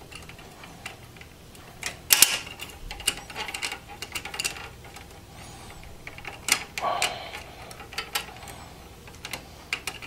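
Blue plastic graphics card bracket of a Dell Precision T3500 being worked into its latching indents in the steel case: irregular plastic clicks and knocks, with a louder cluster about two seconds in and another about seven seconds in.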